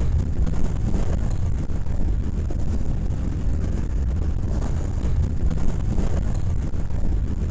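Wind of over 75 mph buffeting the microphone: a loud, steady low rumble that never lets up.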